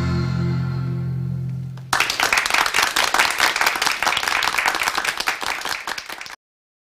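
A held, fading final chord on accordion, double bass and guitar. About two seconds in, small-audience applause breaks out. The applause cuts off abruptly near the end.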